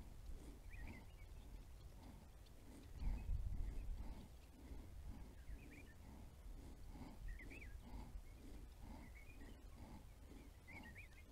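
Faint rural outdoor ambience: a distant animal calling over and over at about two calls a second, with occasional bird chirps above it and a low rumble that swells about three seconds in.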